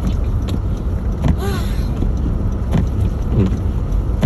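Steady low rumble of an SUV driving through deep snow on snow tires, heard inside the cabin, with scattered short knocks and a brief hiss about a second and a half in.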